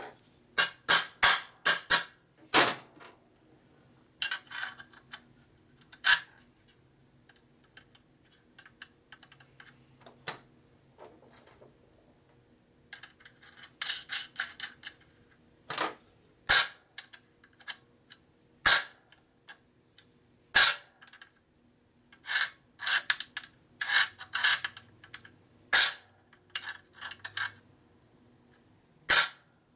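Irregular metallic clicks and clinks of hand tools and small metal parts being handled and tapped, some in quick clusters with pauses between.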